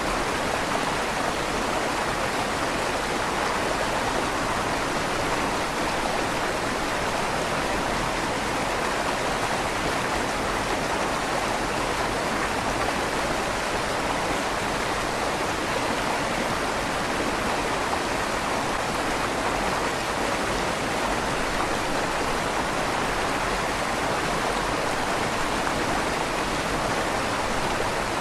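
River water flowing steadily through the tunnel under a stone bridge, an even rushing with a slight echo off the stone walls.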